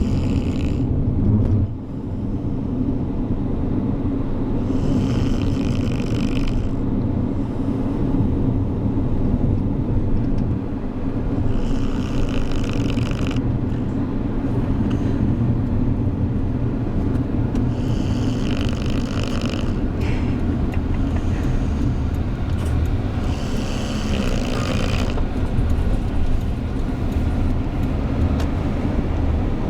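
A worn-out dog snoring in its sleep, a breath about every six seconds, over the steady low road rumble of a moving car.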